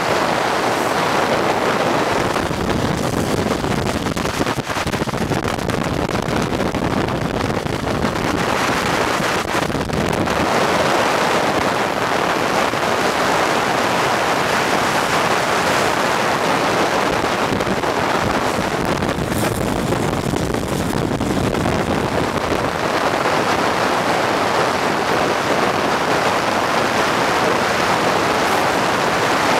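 Steady rush of wind over the microphone with rolling road noise while moving at speed down a highway.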